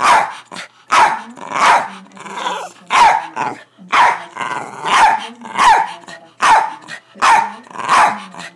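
A dog barking over and over at its owner's sneeze, about ten sharp barks roughly a second apart, with low growling between some of them.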